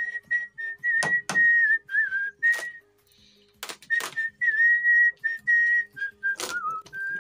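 A person whistling a tune, a single clear line of notes in short phrases with small dips in pitch. Several sharp knocks come in between.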